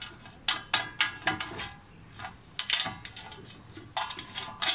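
Metal fasteners clinking against the steel body of a compact Weber kettle barbecue as a nut and washer are fitted to hold the handle's heat shield: a series of sharp, irregularly spaced metallic clinks, each ringing briefly.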